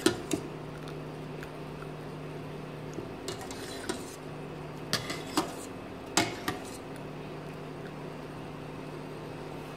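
Metal wire skimmer clinking against the inside of a stainless steel cooking pot of water: about eight sharp, separate clinks over the first seven seconds, over a low steady hum.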